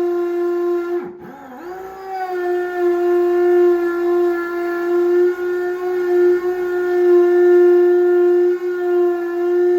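Power drill with a masonry bit boring through tile, its motor running with a steady whine. About a second in, the motor slows sharply and then winds back up to speed.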